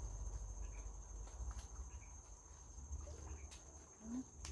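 A steady, faint, high-pitched insect drone, typical of a cricket, holding one tone, over a low rumble.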